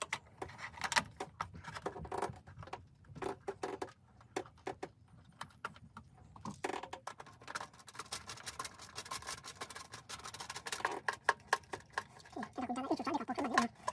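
Small metal cover plate of an electric water heater's wiring junction box being set in place and screwed down by hand: irregular light clicks, taps and scrapes of metal on metal.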